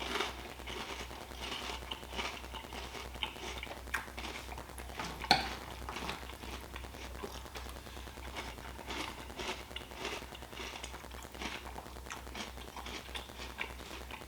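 A person eating milk-soaked Cinnamon Toast Crunch Churros cereal: irregular crunching and chewing with spoon clinks against the bowl. A sharp clink about five seconds in is the loudest sound, over a steady low hum.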